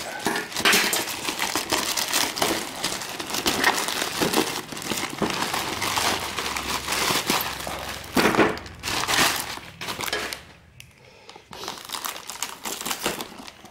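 Plastic courier mailer bag crinkling and rustling as it is handled and pulled open, with a quieter lull about ten seconds in; near the end the crinkling comes from inflatable air-column packaging.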